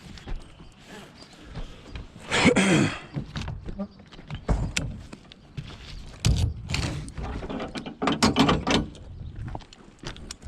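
Scrap metal being handled: a run of knocks and clanks, with a loud scraping burst about two and a half seconds in and heavier thuds later on.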